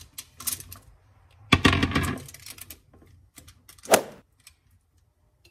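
Cut raw potato pieces tipped onto baking paper in an oven dish: a few light clicks, then a longer clattering tumble with a dull thud about a second and a half in, and one sharp knock a couple of seconds later.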